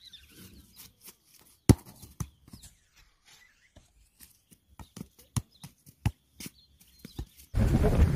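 Irregular sharp thuds of a football being kicked and juggled, the loudest about two seconds in. Near the end, wind buffeting the microphone starts suddenly and is louder than the thuds.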